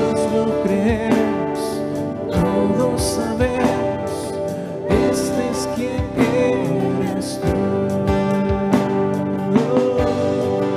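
Live worship music: a strummed acoustic guitar and keyboard with singing voices.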